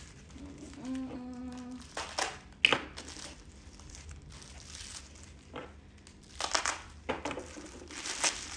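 Plastic packing wrap crinkling and rustling in irregular bursts as a wrapped crystal is unwrapped by hand, with a sharp crackle about two and a half seconds in.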